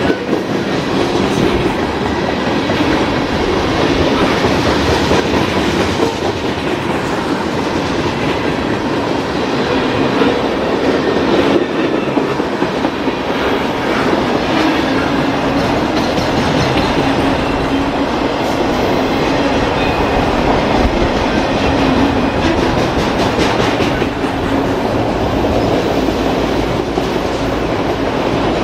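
Cars of a CSX mixed freight train rolling past at close range: a steady rumble of steel wheels on rail, broken by repeated clacks as the wheels pass over the rail joints.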